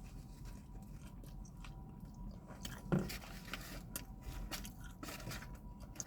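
Close-up mouth sounds of a person biting and chewing a chicken tender sandwich on soft bread, with soft wet clicks and smacks. About halfway through comes a short low hum from the eater.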